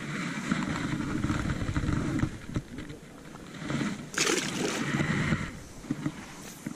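Clothing rustling and shoes scuffing on a grassy rock bank as the angler crouches to the water's edge. About four seconds in comes a short splashing burst as a largemouth bass is let go into the river.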